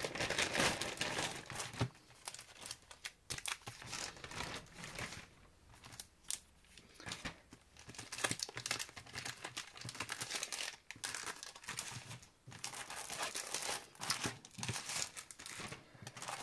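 Plastic packaging crinkling and rustling in irregular bursts as a plastic mailer bag and the clear plastic sleeves of paper pads and sticker packs are handled. It is loudest in the first couple of seconds.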